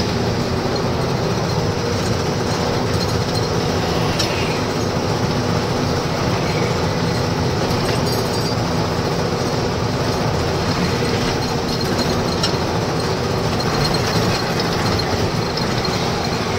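Truck on the move: steady engine and road rumble with no letup.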